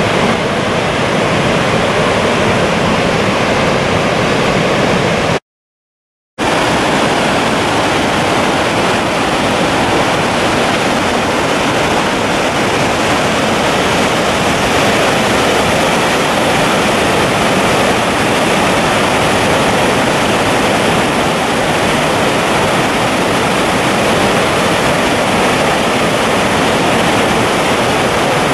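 Dettifoss waterfall's steady, loud rush of falling water. The sound cuts out completely for about a second, some five seconds in, then resumes unchanged.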